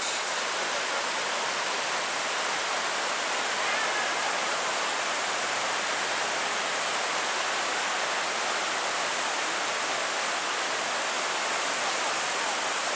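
Mountain stream rushing steadily through a wooded gorge, an even hiss of running water that does not change.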